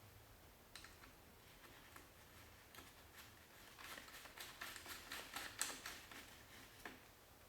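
Faint clicks and light rattling of small metal hardware, a bolt being handled and fitted on a screw drive garage door opener's carriage, with a busier run of quick clicks from about four to six seconds in.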